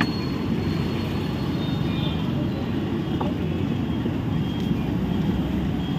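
Steady low roar of a gas burner under a wide iron kadai of deep-frying battered pieces, with the oil sizzling faintly.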